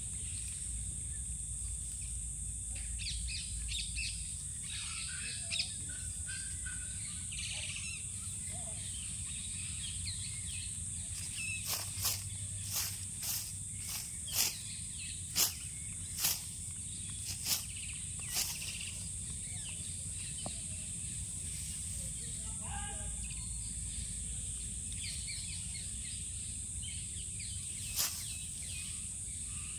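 Outdoor ambience: a steady high-pitched hum under scattered bird chirps. In the middle comes a run of about nine sharp clicks, roughly one every three-quarters of a second, and one more click near the end.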